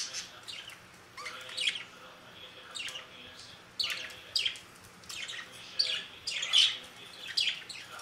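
Budgerigars chirping in short, sharp calls that come irregularly, sometimes several a second, loudest about two-thirds of the way through.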